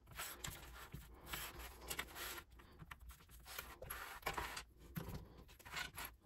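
Faint rustling and rubbing as pieces of canvas and lining fabric with a zipper are slid and smoothed by hand on a tabletop, with small clicks of plastic sewing clips being put on the edges.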